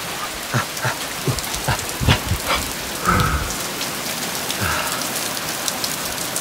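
Heavy rain falling steadily on surfaces, with a few low knocks and thumps over the first three seconds or so.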